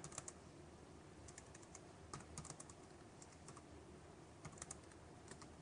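Faint computer keyboard typing: key clicks coming in short runs with small pauses between them.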